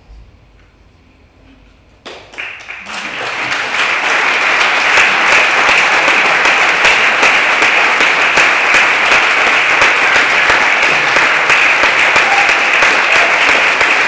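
Audience applause: clapping starts about two seconds in and swells within a couple of seconds into steady, loud applause.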